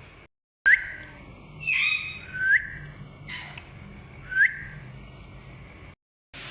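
Parrot giving three short rising whistles, about two seconds apart, with a louder, harsher call between the first two.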